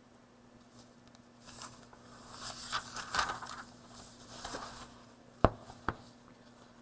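Paper rustling and being handled for a few seconds, then two sharp clicks about half a second apart.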